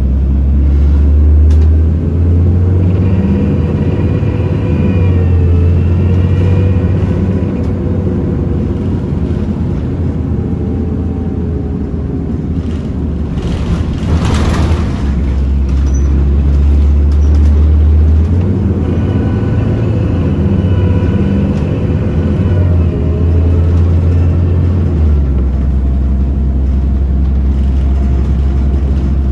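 Bredamenarinibus M240 LS city bus heard from inside while under way: the engine's deep rumble rising and easing in steps as the bus pulls away and slows, with a faint rising whine over it. A brief hiss comes about halfway through.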